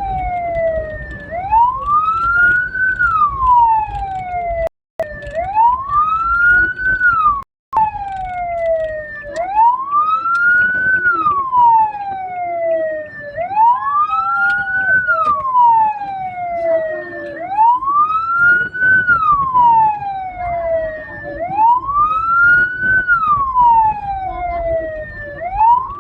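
Hearse siren wailing in a slow cycle, its pitch rising quickly and falling slowly about every four seconds, over the rumble of the moving vehicle. The sound cuts out twice for a moment.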